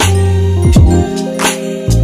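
Instrumental beat music: deep bass notes under a held chord, with a sharp drum hit about every second and a half and a bass note sliding down in pitch partway through.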